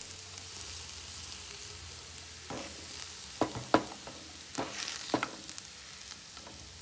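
Boiled potatoes being mashed and stirred into onions in a frying pan over a faint sizzle, the utensil knocking against the pan several times from about halfway through.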